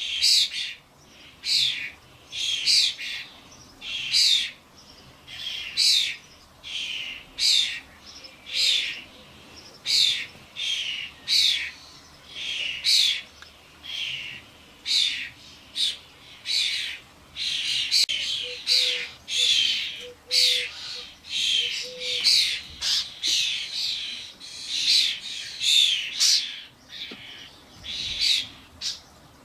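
Common starlings, fledglings among them, calling over and over: loud, harsh, rasping calls, one or two a second without a break, typical of young starlings begging to be fed.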